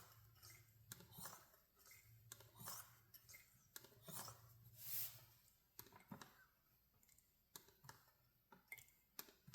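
Faint, irregular clicks and ticks of a hand pump on a gear oil bottle being worked to squirt gear oil into the rear differential's fill hole, with a short hiss about five seconds in and a faint low hum underneath.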